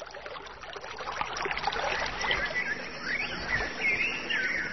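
Water sounds, a steady wash of noise, with high wavering calls joining about two seconds in and growing louder.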